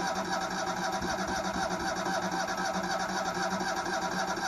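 Kohler engine of a brand-new Hobart Champion Elite engine-drive welder/generator running steadily on its first hours.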